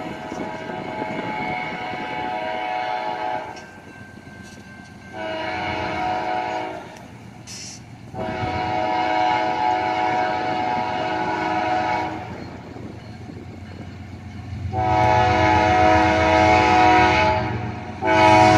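Air horn of a KCS GE ES44AC diesel locomotive sounding a series of long blasts, with short breaks, for a grade crossing. The locomotive's low rumble grows louder toward the end as it nears.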